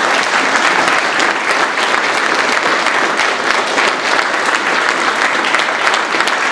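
An audience applauding, many people clapping at once at an even level.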